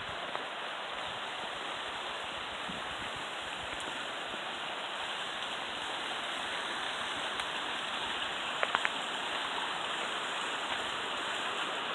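Small mountain creek tumbling over a waterfall: a steady rush of water. A few light clicks come about three-quarters of the way through.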